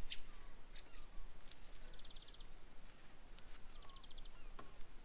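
Small birds calling: scattered short high chirps, with two brief rapid trills, one about two seconds in and one about four seconds in, over faint steady background noise.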